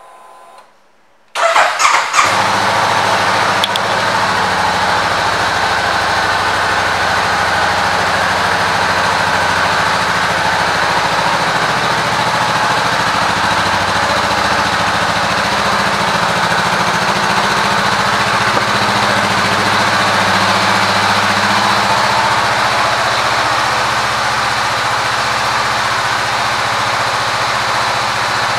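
2019 Honda CBR500R's 471 cc parallel-twin engine cranking and catching a little over a second in, then idling steadily.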